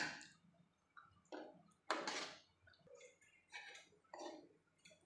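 Steel ladle stirring a watery chickpea curry in a metal kadai: faint, irregular scrapes and clinks of the ladle against the pot, about one every half second to second.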